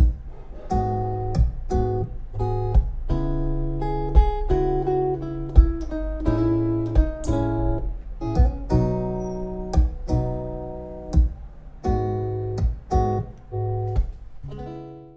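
Strummed acoustic guitar chords over a programmed drum beat, an R&B-pop guitar backing track played through Bose computer speakers. It fades away at the very end.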